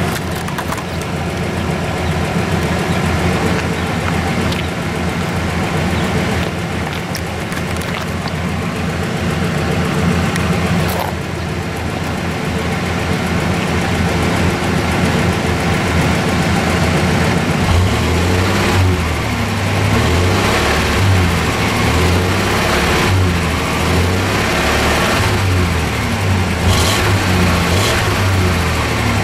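1991 GMC Sonoma's 4.3-litre V6 running at idle, heard at the exhaust. Just past halfway, the low exhaust note starts to throb unevenly and gets a little louder.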